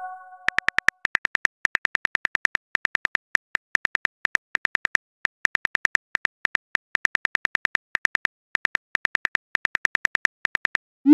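iPhone keyboard key clicks from a texting-story app: a rapid run of short, crisp taps, about six or seven a second in bursts with brief pauses, as a message is typed out letter by letter. A chime fades out at the start, and a short rising swoosh comes at the very end as the message is sent.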